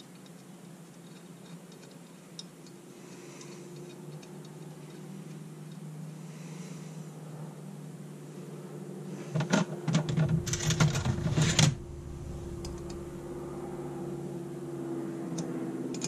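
Small metal carburetor parts clicking and clattering as they are handled on a workbench, with a burst of rapid clatter lasting about two seconds just past the middle. A steady low hum runs underneath.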